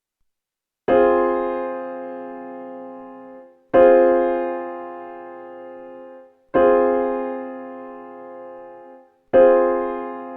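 Piano chords struck four times, about three seconds apart, each held as it fades and then released, played to demonstrate the sound of major and minor chords.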